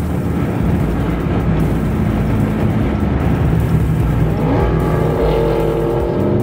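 Dodge Scat Pack V8 engines and exhausts droning steadily at highway cruising speed, heard from inside a car running with them.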